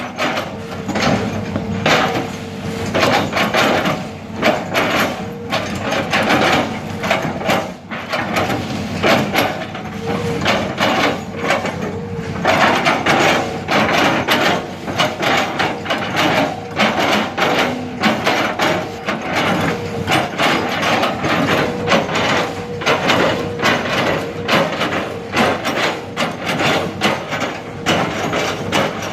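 Hitachi excavator at work, a dense, continuous clatter of knocks and cracks with a faint steady engine tone underneath.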